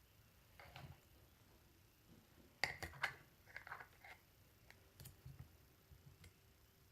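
Faint scattered clicks and small knocks of objects being handled, in a few short clusters over a near-silent room.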